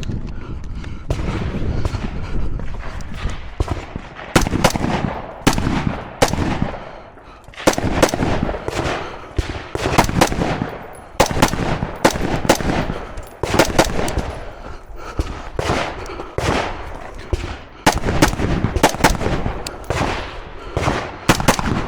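Strings of rapid gunshots from a PSA AR-15 rifle and a Bul Armory Pro Tac 5 pistol being fired on a two-gun stage, in quick bursts broken by short pauses every second or two.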